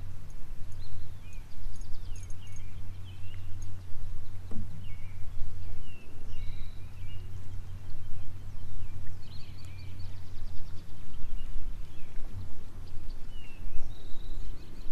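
Small birds chirping and calling again and again, short sliding notes, over a steady low rumble.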